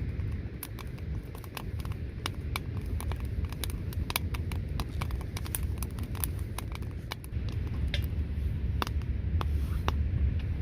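Wood fire crackling in a Solo Stove camp stove, with many sharp irregular pops and snaps, over a steady low rumble of wind buffeting the microphone.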